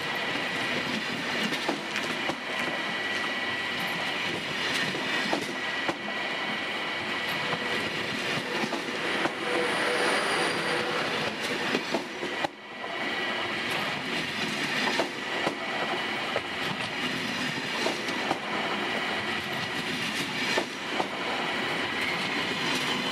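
TGV Duplex double-deck high-speed train rolling past on the platform track: a steady rolling rumble with a thin high tone running through it and irregular clicks of wheels over rail joints. The sound dips briefly about halfway through.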